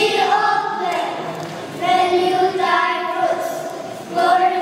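A group of young children reciting a poem together in a sing-song chant, in phrases with short breaths between them.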